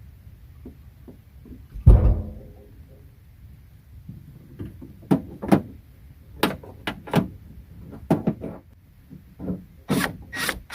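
Knocks and clicks of parts being handled against a pickup truck's door: one heavy thump about two seconds in, then a run of short, sharp clicks and taps that grows busier near the end.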